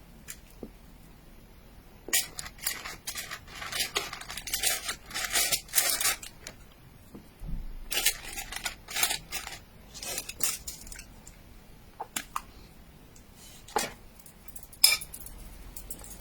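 Utensils and a dish or packaging being handled while eating: two spells of clattering and scraping in bursts, then a few separate sharp clicks near the end.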